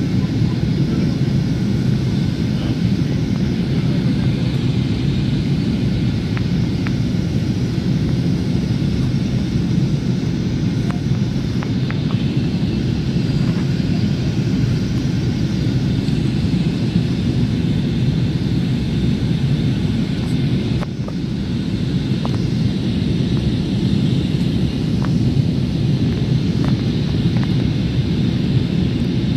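Steady low rumble inside a jet airliner's cabin during descent: engine and rushing-air noise, with a few faint clicks.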